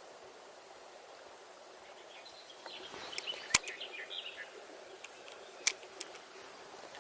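Steady rush of river water, with short bird chirps about halfway through and two sharp clicks, the louder one about three and a half seconds in.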